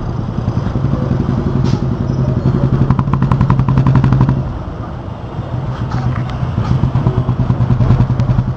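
Motorcycle engines running in slow, dense city traffic. The nearest engine builds in revs to about the middle, eases off briefly, then picks up again, with a rapid ticking rattle as it builds.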